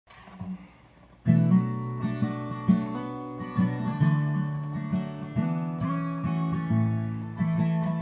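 Acoustic guitar playing a song's instrumental intro. It comes in about a second in, after a short quiet moment, and goes on as a steady run of chords and notes.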